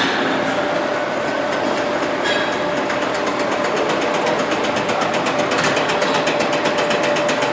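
Hobart V-1401 140-quart mixer running: a steady mechanical hum with a held tone. There is a click at the start, and a fast, regular ticking sets in about three seconds in.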